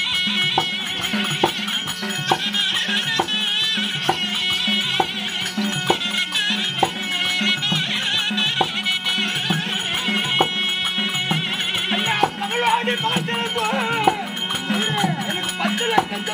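Therukoothu ensemble music: a reed pipe plays a wavering high melody over a steady harmonium drone, with drum strokes roughly once a second and a jingling of ankle bells.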